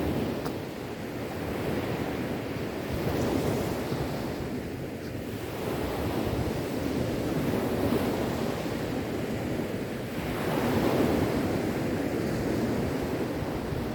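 Sea waves washing onto a shore in a continuous rush, swelling and ebbing as each wave comes in, with the loudest surge near the end.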